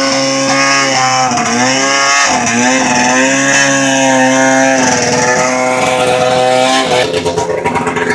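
Snowmobile engine revving under a steady throttle as a sled is driven onto a trailer. Its pitch dips and recovers a couple of times, then drops to a lower, uneven running near the end.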